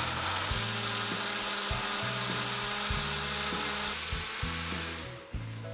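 Countertop blender running at full speed, puréeing kale, fruit and cucumber into a green juice; the motor winds down and stops near the end as it is switched off.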